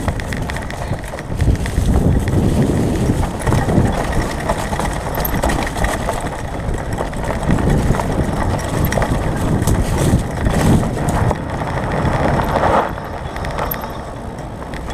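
Mountain bike riding noise picked up by a bike-mounted camera: knobby tyres rolling over a leaf-covered dirt trail, wind on the microphone, and the bike knocking and rattling over bumps. It gets quieter near the end as the bike rolls out onto gravel.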